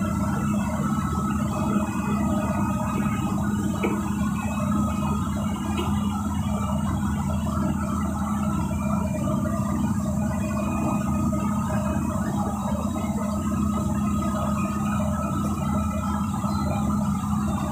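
Diesel engine of a KSRTC bus running steadily, heard from inside the cabin, with music playing over it.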